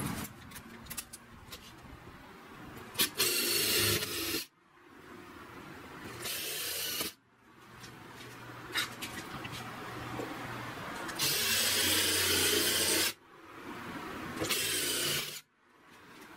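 Power drill boring holes into a wooden stool top, four short runs of drilling, each with a motor hum under it and each cut off abruptly. Small knocks and clicks between the runs.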